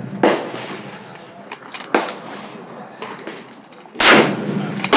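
Rifle shots on a shooting range: a shot just after the start, a weaker one about two seconds in, and the loudest about four seconds in. Each is a sharp crack trailing off in a long echo.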